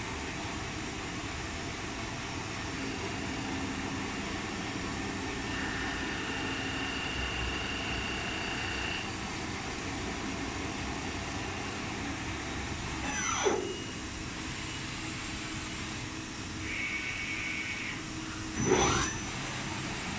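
CNC machining center running a trial cut: a steady machine hum with faint high tones from the cut. Twice, about halfway through and near the end, a brief louder whine falls quickly in pitch.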